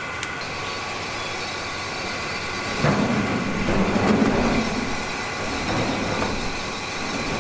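Steady mechanical hum with a thin high whine throughout. About three seconds in, a louder rough noise lasting a couple of seconds as a large metal lid is dragged off a vat of boiling water, with a weaker one near the end.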